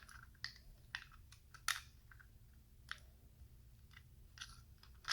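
Plastic LEGO Technic pieces clicking as they are handled and fitted, with a few scattered light clicks; the sharpest comes a little under two seconds in.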